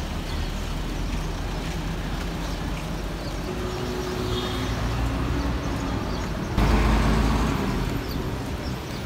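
Busy city street ambience with traffic running. About two-thirds of the way through, a sudden louder rush fades out over about a second.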